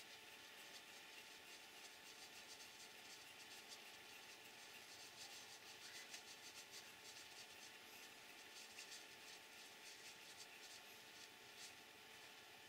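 Faint scratchy rubbing and clusters of tiny rapid clicks as fingers twist the threaded parts of a small aluminium RC car oil shock absorber together, over a steady low electrical hum.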